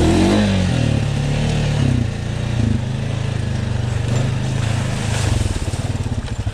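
Honda Rubicon ATV engine running, its revs falling briefly near the start, holding steady, then dropping to an idle about five seconds in.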